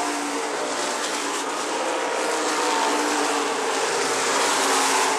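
Pure stock dirt-track race cars running on the oval, a steady engine noise that grows a little louder near the end.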